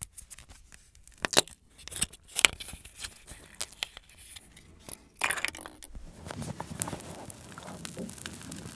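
Thin clear plastic wrapper of a Trolli Planet Gummi crackling and tearing as it is peeled off the gummy ball by hand, in sharp irregular crackles. A louder stretch of crackling comes about five seconds in, followed by softer rustling.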